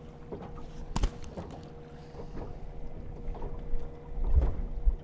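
Small waves lapping and slapping against a small boat's hull, with wind on the microphone and a faint steady hum. There is a sharp knock about a second in and a louder low thump near the end.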